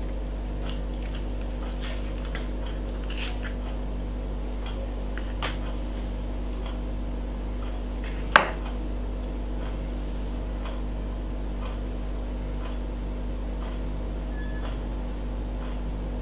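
Steady low electrical-sounding hum with faint scattered ticks and taps as avocado slices are laid on a plate of food, and one sharper click about eight seconds in.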